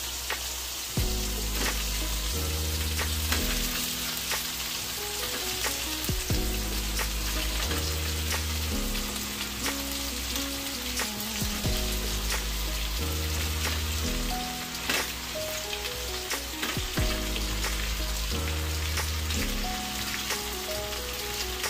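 Hot oil sizzling in a frying pan as pieces of fried big head fish are laid into the sautéed tomatoes and onions, with scattered light clicks of the spatula and fish against the pan. Background music with a steady bass line plays throughout.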